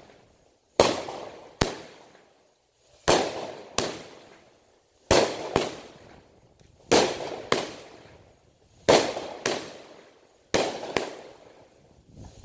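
Aerial fireworks going off shot after shot: sharp paired bangs, the second coming about half a second after the first, repeating about every two seconds, six pairs in all. Each bang trails off in a short crackle.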